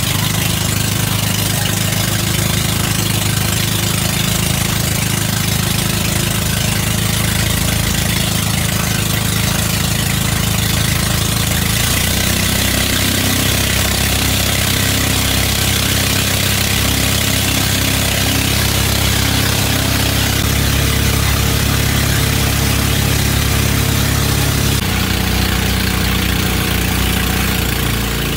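Bangka outrigger boat's engine running steadily while underway, a loud, even drone, with a hiss of wind and water over it. The hum shifts slightly in pitch about twelve seconds in and again near the end.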